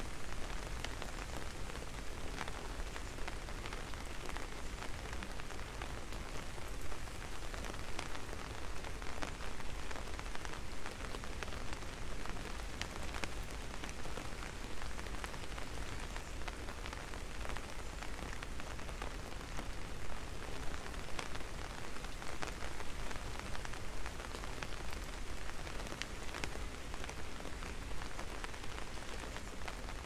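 Steady rain falling: a dense, even hiss with many small louder drop ticks scattered through it.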